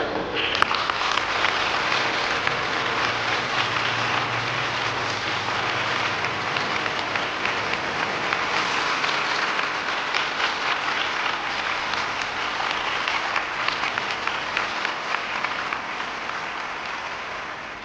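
Audience applauding steadily, a dense patter of many clapping hands that cuts off suddenly at the end.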